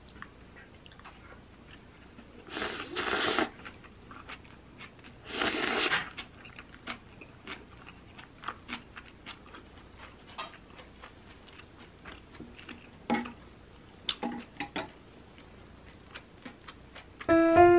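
Eating noodle soup: two long slurps of noodles, then quiet chewing with small crunches and clicks. Piano music comes in just before the end.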